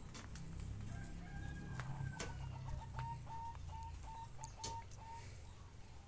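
A bird calling in a quick run of about ten short, even notes, starting about two seconds in and stopping about five seconds in, with a few sharp clicks and a low rumble underneath.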